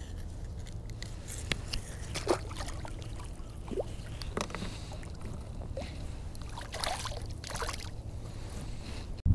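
Small water sloshes, drips and scrapes as a fish is put on a rope stringer and lowered over the side of a kayak, scattered irregularly over a steady low rumble.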